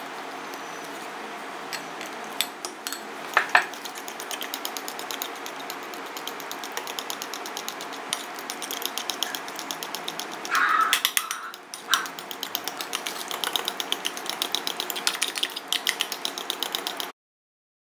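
Metal spoon clinking against a glass mixing bowl in quick, even strokes as a liquid egg mixture is beaten. The sound cuts off abruptly near the end.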